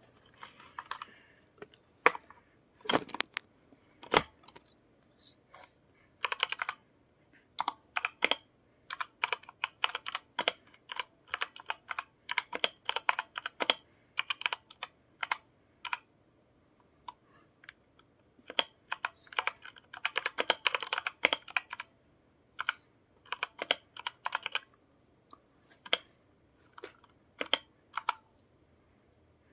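Typing on a Redragon Fizz mechanical keyboard to test it: irregular runs of quick keystrokes with short pauses between them, plus a few single, louder key strikes near the start.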